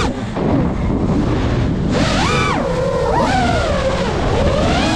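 FPV quadcopter's brushless motors whining, the pitch swinging up and down with the throttle: softer for the first couple of seconds, then a sharp rise and fall, with more swings after. Wind rushes on the microphone underneath.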